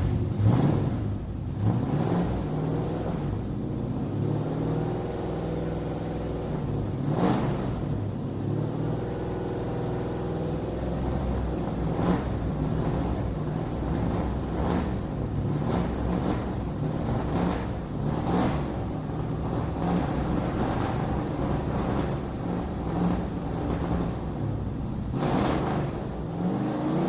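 Muscle car engine idling, with short throttle blips every few seconds. The sound echoes off the walls of an alleyway.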